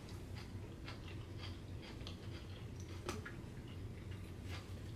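Quiet eating sounds: chewing and small irregular clicks of plastic forks against foam take-out containers, with one sharper click about three seconds in. A steady low hum runs underneath.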